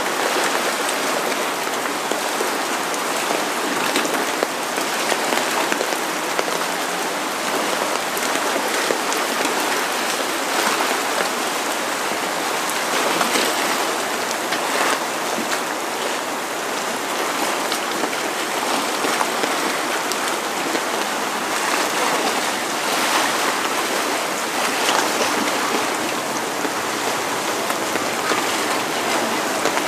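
Steady rain falling: an even hiss of rain with many small drop hits, at a constant level throughout.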